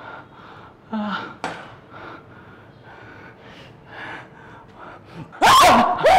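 Quiet heavy breaths, about two a second, then loud shrieking screams break out about five and a half seconds in.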